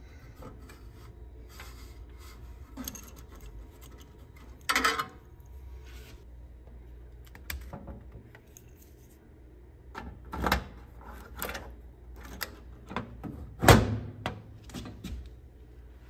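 Blacksmith steel rifle safe being handled: scattered metallic clicks and knocks from its door, lever handle and key, with the loudest knock near the end.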